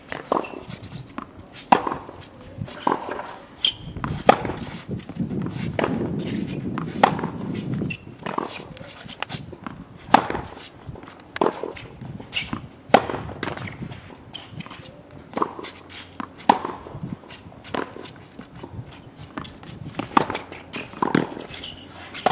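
Tennis rally on a hard court: balls struck with rackets and bouncing, sharp pops coming irregularly about once a second.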